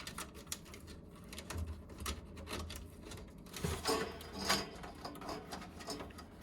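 Hands working inside a PC case while fitting RGB LED strip lights: scattered light clicks, taps and rubbing, with a cluster of louder knocks about four seconds in.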